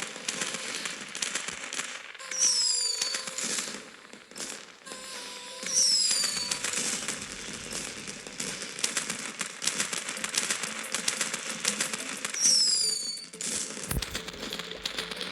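Fireworks crackling in a dense stream of rapid pops, with short high whistles falling in pitch about two and a half, six and twelve seconds in.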